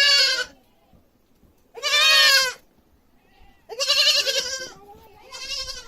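A goat bleating loudly, four quavering baas about one to two seconds apart, the last one shorter and softer.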